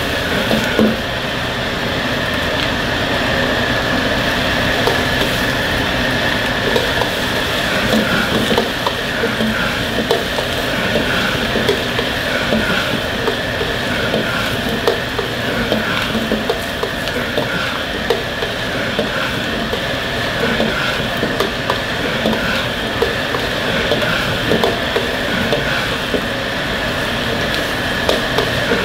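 Chopped vegetables stir-fried in a carbon-steel wok over a commercial gas wok burner. A metal ladle scrapes and clacks against the wok again and again, with frying sizzle over a steady rush of noise.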